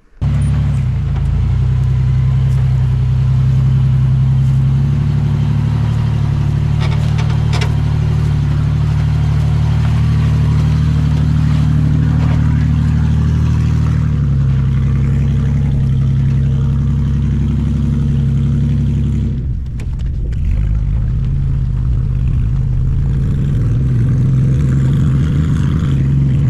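Lifted 4x4 GMC Safari van's engine running steadily under load while it crawls a steep trail section. A few sharp knocks come about a quarter of the way in. The engine note shifts about halfway and drops briefly about three-quarters through.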